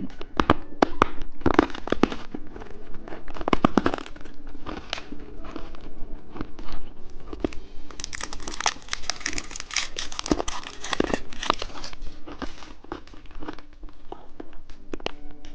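Plastic candy wrapper being crinkled and torn open, a run of sharp crackles that grows densest about halfway through.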